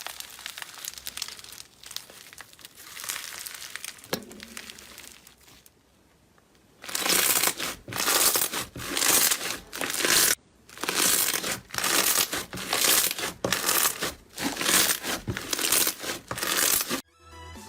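Slime being pressed and squeezed by hand, crackling and crinkling. After a short lull about six seconds in, loud crackling presses come in a steady rhythm, about one and a half a second.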